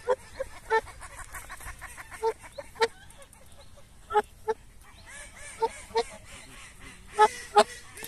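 Geese honking: about a dozen short, nasal calls, often in quick pairs, the loudest pair near the end.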